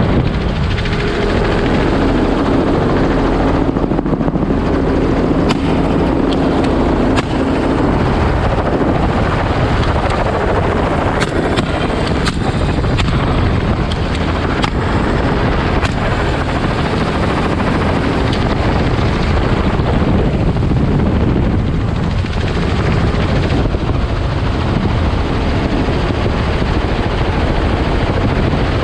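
Robinson R44 helicopter in low flight, heard from inside the open-doored cabin: a loud, steady drone of rotor and six-cylinder piston engine with rushing air.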